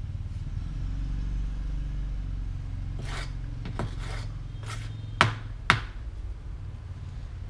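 Several sharp knocks and scrapes of a tool against a bucket of cement mortar as it is scooped, five in about three seconds, the loudest two close together. A low engine hum runs under them.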